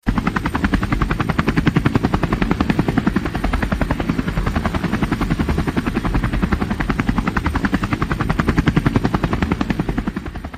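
Helicopter rotor chopping in a rapid, even beat of about ten strokes a second over a low rumble, fading out near the end.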